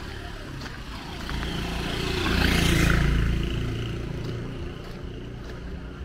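A motorcycle passes close by. Its engine grows louder for about two seconds, is loudest about halfway through, then fades as it moves away.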